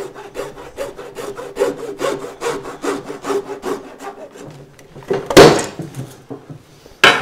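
Hacksaw cutting through black polyethylene water pipe in quick, even back-and-forth strokes, several a second. A louder rasp comes about five seconds in, and a sharp, loud burst just before the end.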